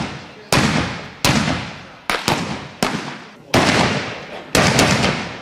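Black-powder guns fired one after another in a ragged volley: about seven sharp shots at uneven intervals, each ringing out and fading over most of a second.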